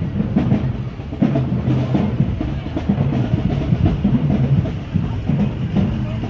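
Marching band drumline playing a cadence, with bass drums and snare drums beating a steady rhythm.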